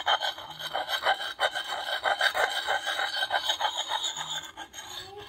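Coarse-grit side of a Lansky puck sharpening stone scraping in small circles against the edge of a high-carbon steel Marbles Hunter's Axe: a quick, uneven run of gritty rasping strokes. This is the first, coarse stage of sharpening, grinding down the edge.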